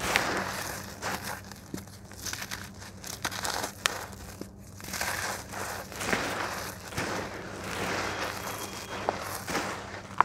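Hands crumbling and raking dry, gritty red slab dust and small lumps: irregular gritty crunching and rustling with scattered small cracks.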